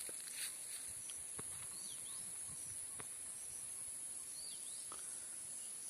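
Outdoor animal ambience: a steady high-pitched insect drone, a few short chirps from small birds and a few soft clicks, with a faint low rumble in the middle.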